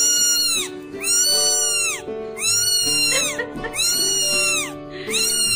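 A young kitten meowing loudly and repeatedly: five high-pitched cries, each rising then falling in pitch, with short gaps between them. Background music with steady held notes plays underneath.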